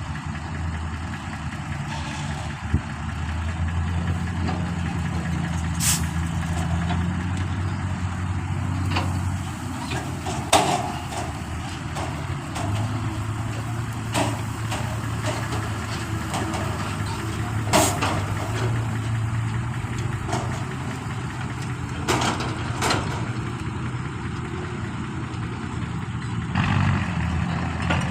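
A heavy diesel engine running steadily, its speed shifting a couple of times, with a few sharp metallic knocks now and then.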